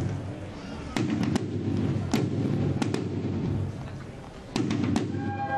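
A run of firecracker or rocket bangs, sharp cracks each followed by a rumbling echo between the buildings. Just before the end a brass band strikes up with held chords.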